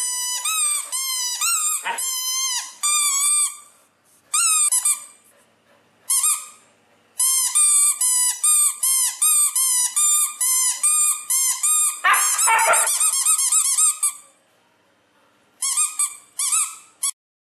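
Rubber squeaky toy ball squeezed over and over, giving runs of quick high-pitched squeaks broken by short pauses. About twelve seconds in there is a brief harsh, rougher sound among the squeaks.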